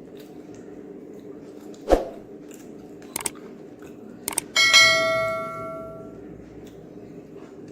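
A knock about two seconds in and a couple of light clicks, then a metal utensil clangs and rings out, fading over about a second and a half.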